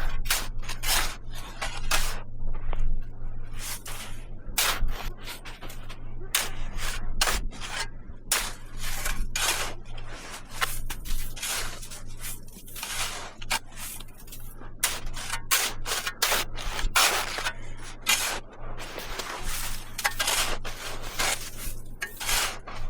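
Repeated short rubbing or scraping strokes at an irregular pace, about two or three a second, over a steady low hum.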